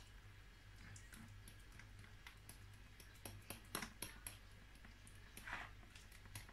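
Faint, irregular clicks of cutlery against a small ceramic bowl as a thick mashed-banana and honey paste is stirred, over a low steady hum.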